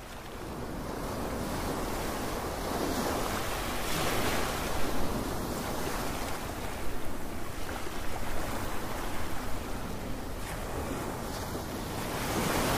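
Sea waves washing onto a beach, the surf swelling and easing several times, with wind rumbling on the microphone.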